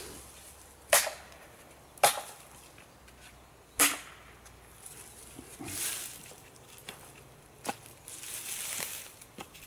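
Pieces of dead wood knocking together as they are laid onto a wood pile: three sharp wooden clacks about a second apart, then rustling of twigs and dry grass with one lighter knock near the end.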